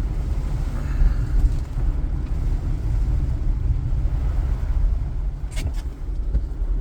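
Steady low rumble of a car driving, heard from inside the cabin: engine and tyre noise on wet road, with two short clicks about five and a half seconds in.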